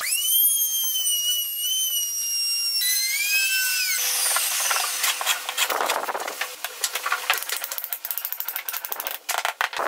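Compact trim router spinning up to a high whine as it cuts a groove in wood, dropping to a lower pitch a little before three seconds and winding down about four seconds in. After that come scraping chisel strokes paring the groove clean, then a quick run of hammer taps seating a metal T-track in the groove.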